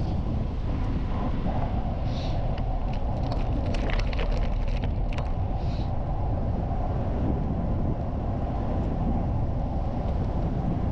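Bicycle rolling on a gravel path, with steady wind rush over the microphone. A cluster of sharp clicks and rattles comes between about two and five seconds in.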